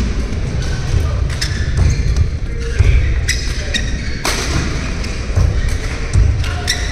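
Badminton play on an indoor court: players' shoes thudding and squeaking on the court, with sharp racket strikes on the shuttlecock at irregular intervals, one strong strike about four seconds in.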